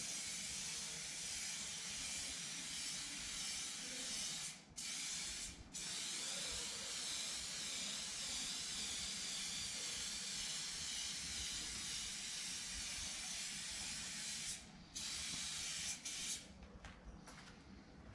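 Aerosol spray-paint can hissing in long steady passes, broken by a few short pauses, and ending in several short bursts.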